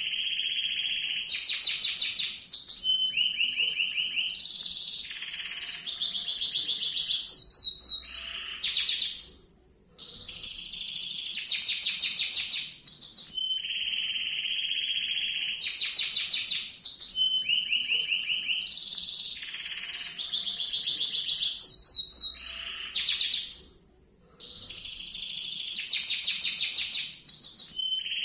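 Domestic canary singing a long rolling song: sustained rolls and rapid trills, high-pitched, in long unbroken phrases. The song stops briefly twice, about ten seconds in and near the end, then starts again with the same phrase.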